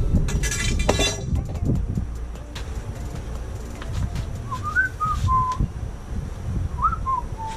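A person whistling two short tune phrases, each sliding up and stepping down over three notes, about halfway through and near the end, over a steady low rumble. A few clicks and a brief rustle of handling come in the first second or so.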